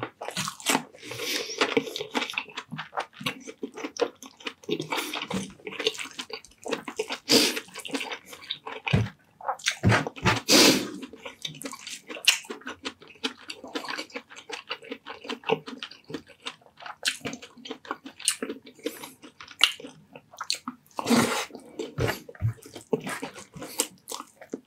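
Close-miked mukbang eating of saucy pork and rice: wet chewing and lip-smacking, with sharp crunchy bites and mouth clicks throughout. It grows louder for a few seconds near the middle and again near the end.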